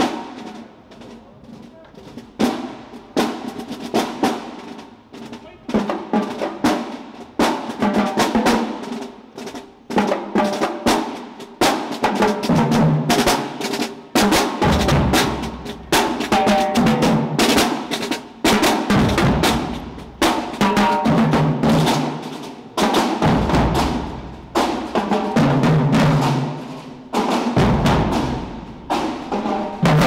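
Marching band drumline playing a marching cadence: snare drums with rapid rolls over tenor and bass drums. It starts lighter, and the bass drums come in heavily from about halfway through.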